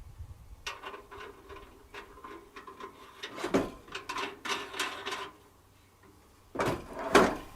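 Handling noises from working on a portable water heater and its hose fittings: a run of small clicks, rattles and scrapes, then two louder knocks near the end.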